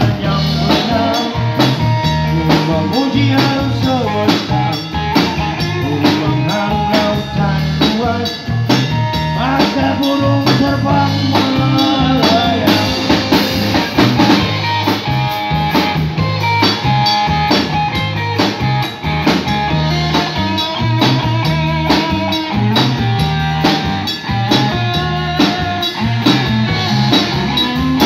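Live rock band playing: electric guitar, electric bass and drum kit keeping a steady beat.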